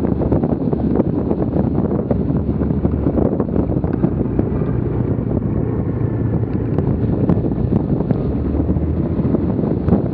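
Wind buffeting the microphone of an action camera mounted on a moving bike, a steady low rumble with road noise underneath and a few faint knocks.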